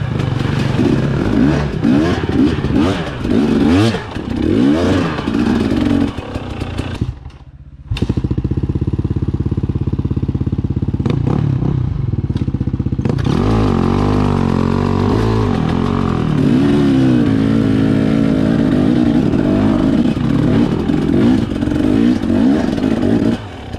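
Husqvarna TE250 two-stroke dirt bike engine revving up and down on the throttle while riding a trail, with a few knocks from the bike. It drops to a low idle for a moment about seven seconds in and falls away just before the end.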